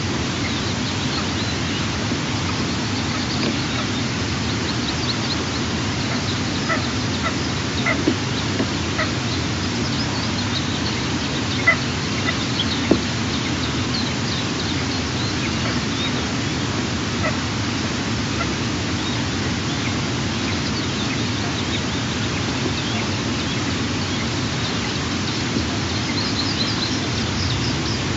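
Steady rushing noise at an outdoor nest-cam microphone, with scattered short high bird chirps and a few faint clicks.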